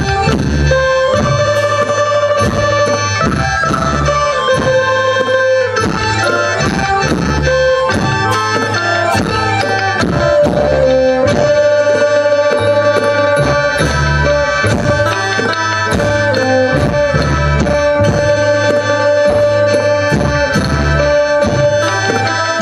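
Live Thai traditional ensemble music: held melody notes over a steady beat of drum strokes.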